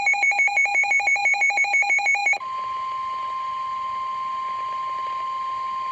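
Emergency alert tones: rapid electronic beeping, about eight beeps a second, then about two and a half seconds in a single steady tone sounds. The steady tone is the weather-radio warning alarm that comes before a tornado warning.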